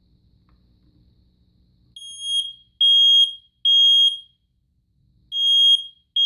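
Kidde Code One i9030 ionization smoke alarm sounding its test alarm, starting about two seconds in. It gives loud, high-pitched beeps in the three-beep-and-pause fire-alarm pattern: one full group of three, a pause, then the next group begins.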